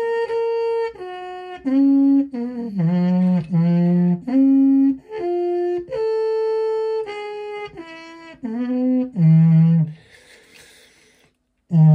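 Trumpet played solo: a slow tune of held, separated notes that steps downward into the instrument's low register. About ten seconds in the tune stops, with a short hiss and a brief silence, then a new long low note starts near the end.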